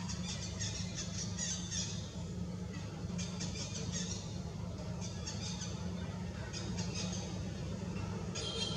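Short bouts of high-pitched squeaking animal calls, repeating every second or two, over a steady low hum.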